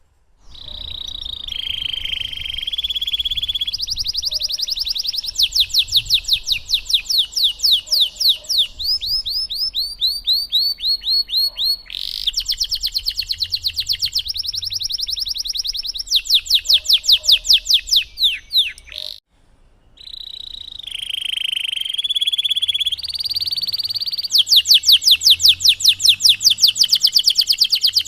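Domestic canary singing a long, varied song of rolls and fast repeated trills, switching from one trill pattern to the next every few seconds, with a short break a little over two-thirds of the way through before it sings on.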